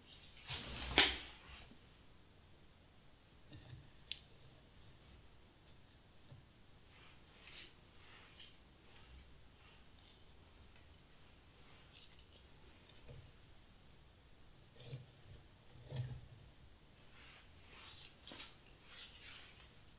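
Dried bunny tail grass stems being handled over newspaper: short crisp rustles and small clicks every second or two, with a louder rustle about a second in and a sharp click around four seconds.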